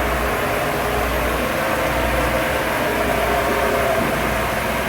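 Steering gear hydraulic pump's electric motor running steadily, a constant machinery hum with a few steady tones. It keeps running even with its phase fuses pulled.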